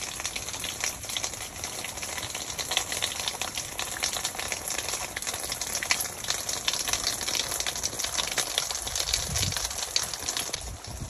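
Steady rain falling, a dense crackling patter of many small drops.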